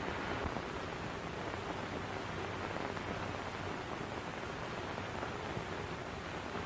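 Steady hiss with a faint low hum: the background noise of an old 1930s film soundtrack, with no dialogue.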